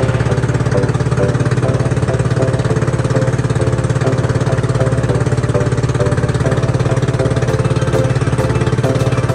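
Outrigger boat's engine running steadily as the boat moves under way, a fast even putter.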